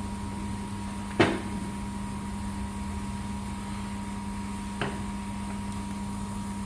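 Steady hum of a 2000 W laser welding machine standing switched on before a weld, with two fixed tones. A sharp click comes about a second in and a fainter one near five seconds.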